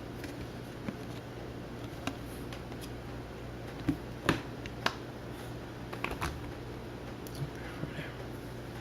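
Trading cards being handled: scattered light clicks and rustles of card stock, a little louder about four seconds in, over a steady low hum.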